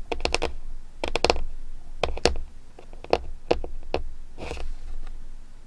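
Paper and stationery being handled: crisp clicks and taps in short clusters about once a second, with a brief papery rustle near the end.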